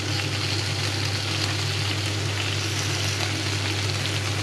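Chicken sizzling on a hot grill plate with coconut milk, a steady crackling hiss, over a constant low hum.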